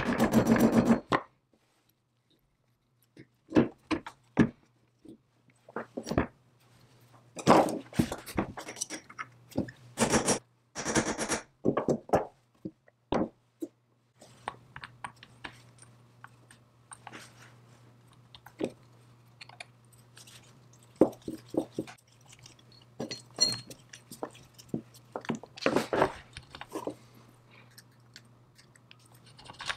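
Cast-iron and steel parts of an antique belt lacer being fitted together by hand: a quick run of mallet knocks in the first second, then scattered clicks, taps and scrapes of metal pins and parts against the iron frame. A low steady hum comes in about halfway through.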